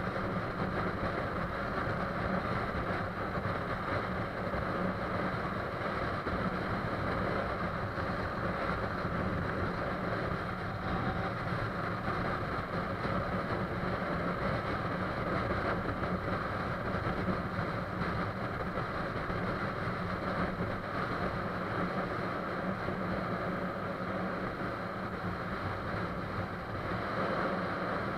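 Motorbike engine running steadily at cruising speed, mixed with the rush of wind and road noise on a bike-mounted camera's microphone.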